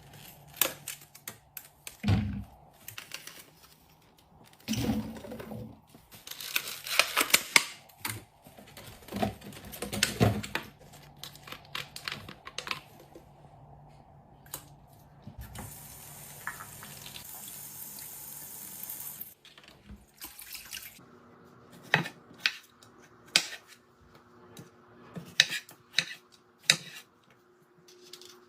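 Containers, bottles and packages being handled and set down while restocking a fridge, a run of clicks and clatters, with liquid pouring for about four seconds just past the middle. A faint steady hum comes in for the last several seconds.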